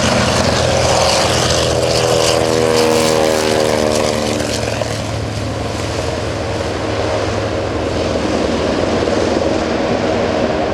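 A TBM-3E Avenger's Wright R-2600 twin-row radial engine drones loudly as the aircraft flies past. A few seconds in, its tone sweeps downward as it goes by, and then it recedes slightly.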